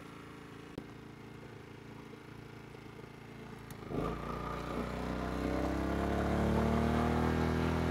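Small portable generator engine running steadily at a low speed, then about halfway through speeding up with a rising pitch and settling at a louder, higher steady run.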